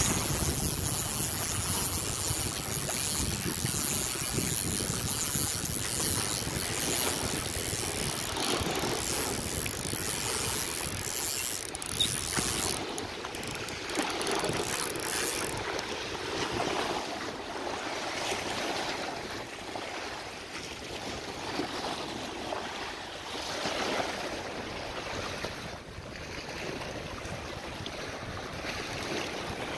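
Small sea waves washing and lapping against shore rocks, in rising and falling surges, with wind buffeting the microphone, heavier in the first half.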